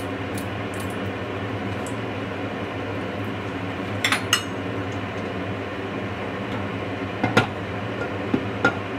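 A metal spoon clinks against a cooking pan a few times: two quick clinks about four seconds in, then a few more near the end, over a steady hum.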